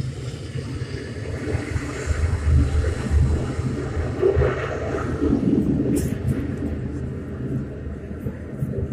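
Jet engine of an F-35B fighter running with a steady low rumble and a rushing hiss.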